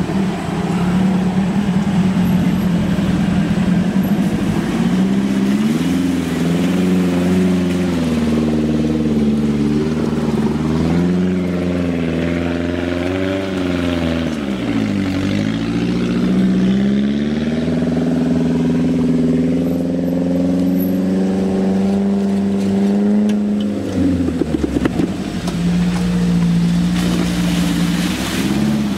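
Off-road 4x4 engines labouring and revving up and down as they crawl through mud and rocks, the pitch sagging and climbing again several times. A short clatter of knocks comes a few seconds before the end.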